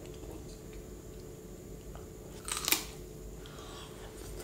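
Close-miked mukbang eating: quiet chewing and wet mouth sounds with faint clicks, and one short, sharp, louder crunch a little past two and a half seconds in.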